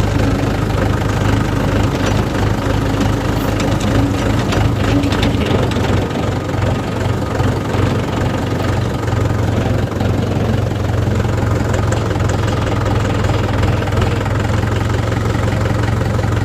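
Tractor's diesel engine running steadily through a modified aftermarket silencer while pulling a loaded trolley, a deep continuous exhaust note.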